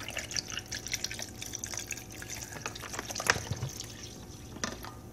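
Water poured from a bottle into a glass blender jar, splashing and trickling over achiote blocks and lime juice, with a louder knock a little past three seconds in; the pour then tails off into a few drips.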